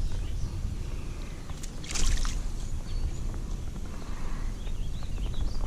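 Wind rumbling on the microphone while a hooked bass is played in, with a brief splash of water about two seconds in.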